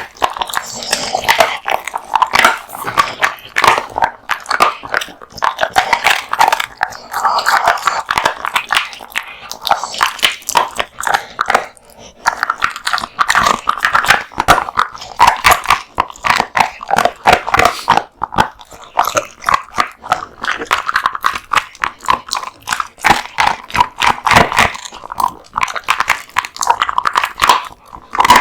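An American Bully dog chewing raw meat and bones, with a steady run of wet bites and bone crunches and a couple of brief pauses.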